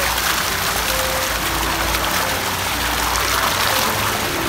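Water splashing and churning steadily as a toy car is pushed by hand back and forth through shallow pool water.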